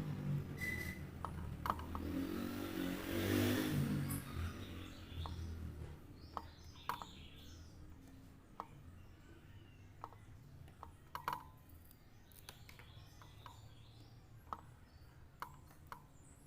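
A motor vehicle passing and fading away over the first few seconds, then faint, scattered short chirps and clicks over a quiet background.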